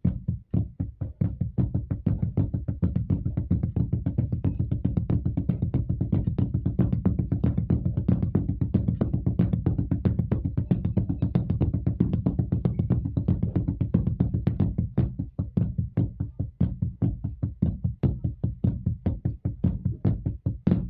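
Drumsticks playing the left-hand flam drill "flam right, flam left, left" over and over in a fast, even stream of strokes. The strokes thin out in the last few seconds.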